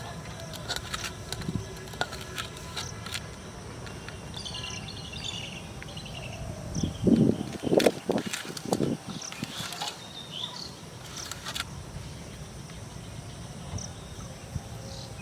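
Outdoor pond-side ambience: insects and a bird chirping over a steady background hiss, with scattered clicks and a brief louder spell of short sounds near the middle.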